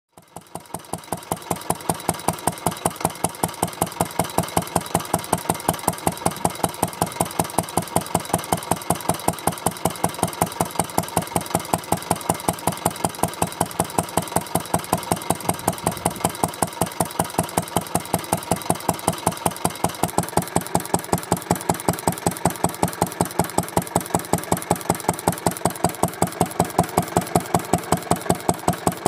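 Vintage Japanese ISAMI 2 HP single-cylinder stationary engine running steadily, with an even, rapid beat of exhaust strokes.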